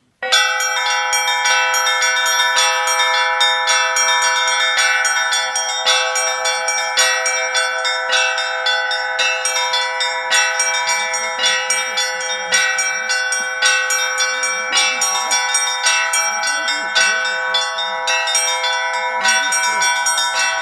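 Russian Orthodox church bells rung in a full peal: several bells struck in a quick, overlapping rhythm that starts suddenly and keeps ringing without a break.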